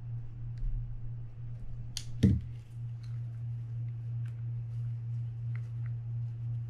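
Small clicks of a metal pick and the parts inside a Penn Spinfisher 750SSM spinning reel's jammed gearbox as they are pried at and handled. A sharp click and a louder knock come about two seconds in.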